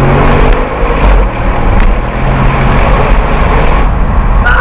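Audi RS6 C7 accelerating at motorway speed. The twin-turbo V8's note rises in pitch in the first half-second, then gives way to loud, even wind and road noise.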